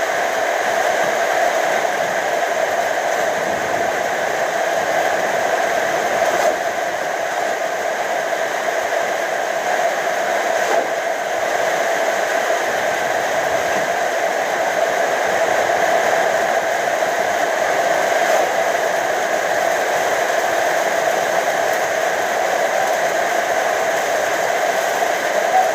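Steady whirring noise, like a fan or motor running continuously, with a few faint knocks.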